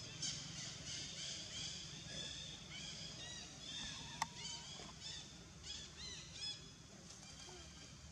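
Many short, high-pitched chirping calls, each rising and falling, coming in quick runs. There is one sharp click about four seconds in.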